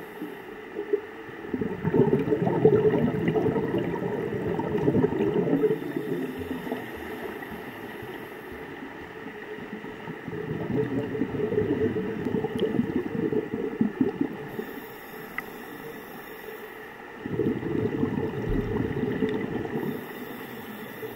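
Muffled underwater sound heard through a camera's sealed waterproof housing: low, gurgling rushes of water from swimmers kicking with fins, swelling and fading every few seconds.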